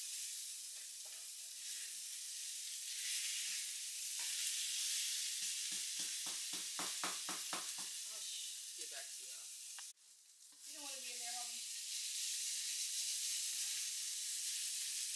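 Food sizzling steadily as it fries in a pan on the stove, with a brief dropout about ten seconds in.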